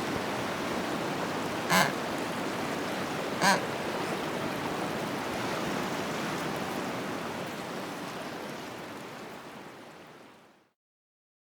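Penguins in the wild: a steady rushing background noise with two short penguin calls, about two seconds in and again about a second and a half later. The whole sound then fades out to silence shortly before the end.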